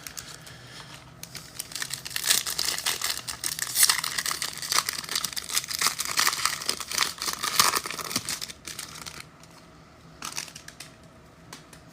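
A foil trading-card pack wrapper being torn open and crinkled by hand, with a dense crackling that runs for several seconds and then dies down.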